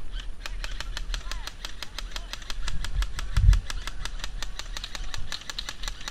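Airsoft guns firing a rapid, steady string of sharp clicks, about seven shots a second, with a dull thump about three and a half seconds in.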